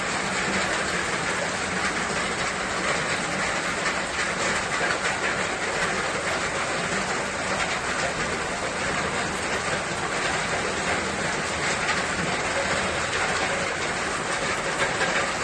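Steady rainfall, a dense even hiss of many fine drops with no let-up.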